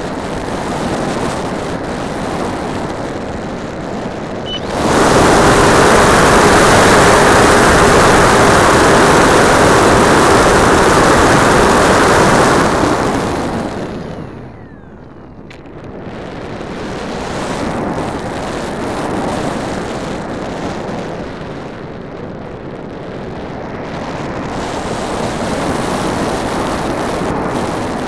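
Onboard sound of an RC model plane in flight: airflow rushing over the camera along with the plane's motor and propeller. About five seconds in it jumps to a much louder, steady rush with a faint whine for some eight seconds, then fades to a lull before the rush builds back up.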